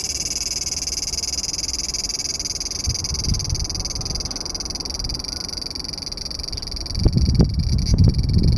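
Large brown cicada singing one continuous, high, buzzing drone that weakens toward the end. Low rumbling bumps, like wind or handling on the microphone, come in about seven seconds in.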